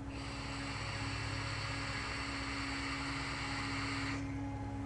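Steady hiss of a long draw on a coilless vape atomizer tank as it fires, with no spitting or popping, stopping sharply about four seconds in.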